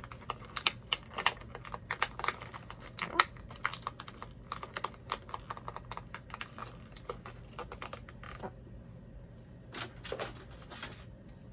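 Hard plastic doll packaging clicking and crackling in quick, irregular taps as small accessories are worked loose, busiest for the first eight seconds, then a few scattered clicks.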